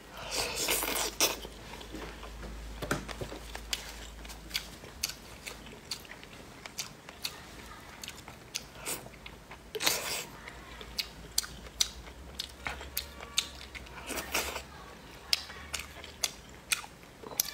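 Close-up biting and chewing of deep-fried tofu pouches: crunchy bites about a second in, near ten seconds and around fourteen seconds, with chewing and many small sharp clicks between.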